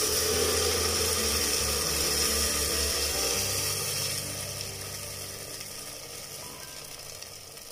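Thin rice batter pouring into hot coconut oil with fried coconut pieces and shallots in a pressure cooker, sizzling loudly at first and dying down over the last few seconds as the oil cools under the batter.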